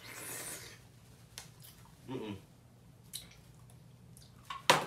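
A person reacting to very sour candy in his mouth: a hissing breath near the start, then a short falling groan about two seconds in. Near the end comes a sharp smack, the loudest sound.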